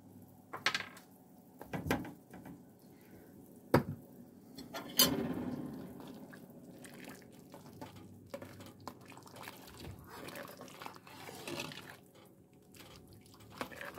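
Pot of chicken broth simmering and being stirred: faint liquid bubbling and sloshing, with a few sharp knocks in the first few seconds.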